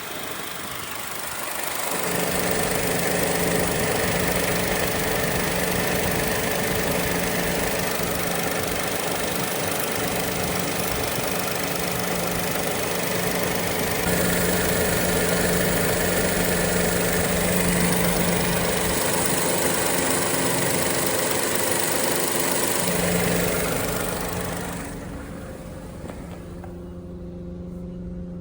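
Suzuki Wagon R engine idling with its air-conditioning compressor running and making an abnormal noise. The noise comes in about two seconds in, adding a loud hissing rattle over the idle, and drops away near the end, leaving the plain idle. It is the sign of a failing A/C compressor that leaves the air conditioning not cooling.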